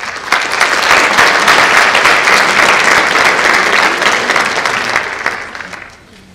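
Audience applauding. It starts all at once, holds steady for about five seconds, then dies away.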